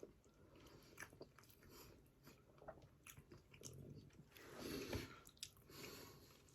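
Faint chewing of food, with a few small clicks scattered through.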